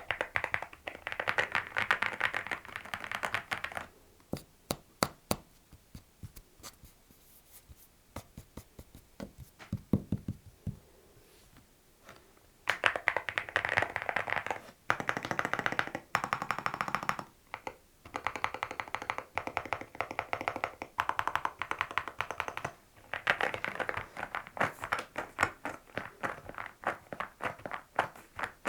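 Mechanical keyboard being typed on: fast runs of keystrokes, a stretch of a few slow single key presses in the middle, then fast typing again.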